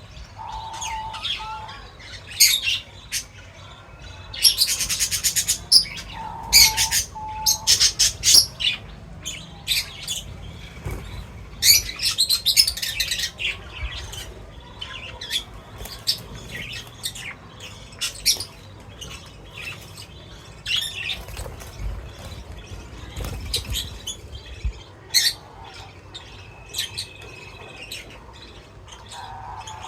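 Small birds chirping in many short, quick, overlapping calls, busiest about four seconds in and again about twelve seconds in.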